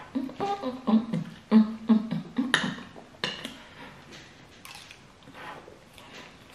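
A woman's voice making a quick string of short wordless sounds, like rhythmic hums or grunts, for about two and a half seconds. Then scattered sharp clicks and smacks of eating with a fork.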